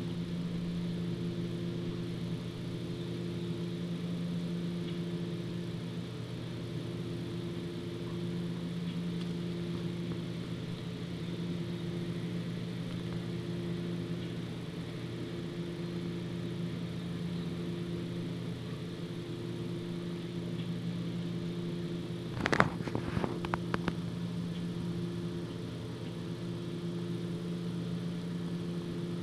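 Steady low hum of a running engine, held at a few even pitches. About 22 seconds in comes a short cluster of sharp cracks, the loudest sound in the stretch.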